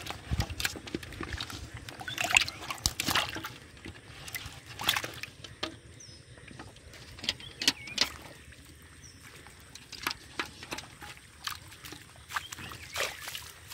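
Live fish thrashing in shallow water in a metal bucket: irregular wet slaps and sloshes, with the loudest splashes a few seconds apart.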